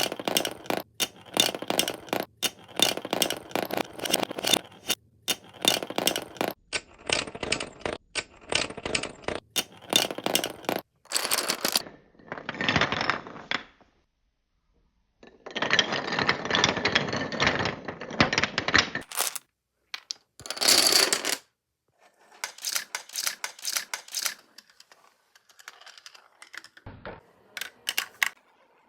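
Marbles rolling down marble runs: rapid trains of clicks and rattling as they bounce and clatter along the track, in several separate runs that start and stop abruptly, with brief silences between.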